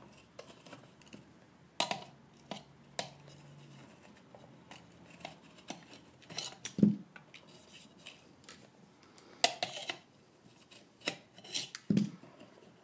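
Irregular handling noise of hands and needle-nose pliers working on a metal heat-lamp head: scattered clicks, light taps and rubbing as wires are pulled through the insulating tubes, with dull knocks about seven seconds in and again near the end.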